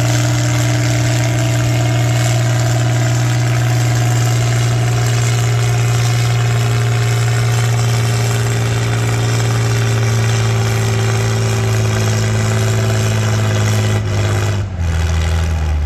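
Farm tractor engine running hard under full load as it drags a weight-transfer pulling sled. It holds a steady, loud note, then drops off abruptly near the end as the pull stops.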